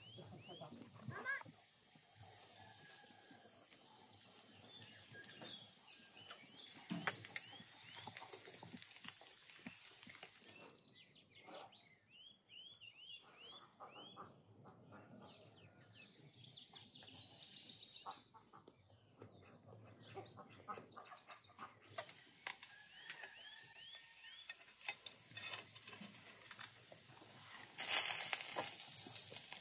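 Small birds chirping over and over in short rising-and-falling calls, with scattered light clicks and knocks, and a louder rustling noise near the end.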